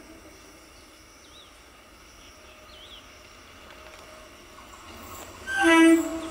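An Indian Railways EMU local train approaches with a faint low rumble and a few bird chirps. About five and a half seconds in, it sounds a short, loud blast of its horn.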